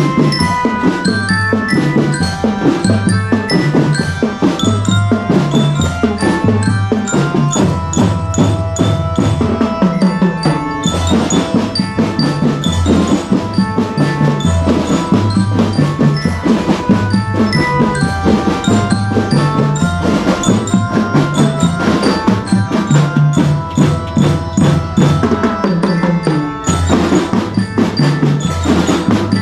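School drum band playing a tune: glockenspiels carry the melody over a steady beat of snare and bass drums. A brighter, splashier wash of cymbals joins about ten seconds in and again near the end.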